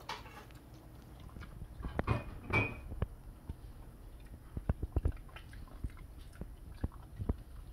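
Jindo dog chewing cooked fish and crunching on its bones, with irregular sharp crunches and clicks, the loudest cluster about two seconds in.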